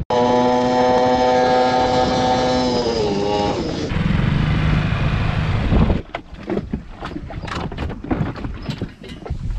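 Dinghy outboard motor running at a steady high pitch, throttled back about three seconds in so its pitch drops to a lower rumble with water noise. About six seconds in the motor gives way to a run of knocks and thumps as the dog jumps onto the yacht's stern.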